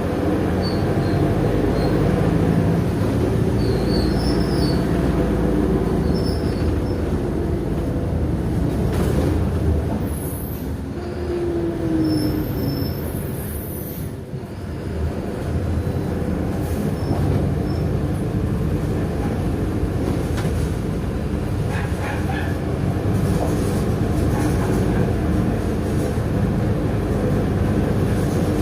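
Mercedes-Benz OF-1619L city bus on the move, heard from inside at the rear: steady diesel engine and road rumble. The sound eases off about ten seconds in and builds again a few seconds later.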